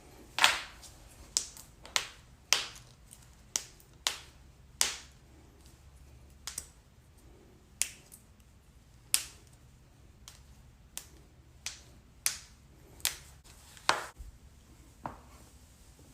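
Human joints cracking: a run of sharp pops, about one a second at uneven spacing, some much louder than others, the loudest near the start.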